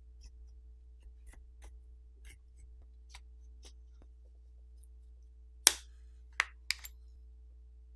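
Blue plastic pry pick run along the seam between a phone's plastic back housing and its frame, making faint ticks and scrapes, then four sharp clicks close together a little past halfway as the housing's plastic catches pop loose.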